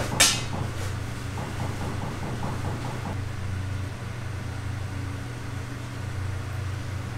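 Steady low mechanical hum, like a motor or fan running, with one sharp knock just after the start.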